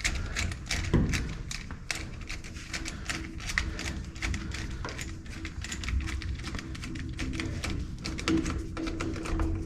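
Rapid, irregular clicks and light taps of hand tools working the metal hose clamps of a fire extinguisher mount on a roll bar.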